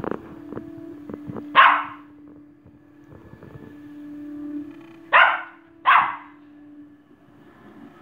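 Puli dog barking: three sharp barks, one about a second and a half in and two close together around five and six seconds in.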